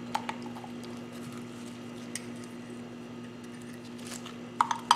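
A few light metallic clicks and knocks from a C-clamp being handled against a scooter's two-piston brake caliper as it is moved from one piston to the other, the loudest cluster near the end, over a steady low hum.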